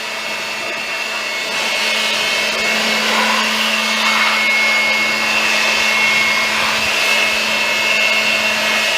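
Handheld electric air blower running steadily, a motor whir with a high whine, blowing dry dust off a window air conditioner unit. It gets louder about a second and a half in.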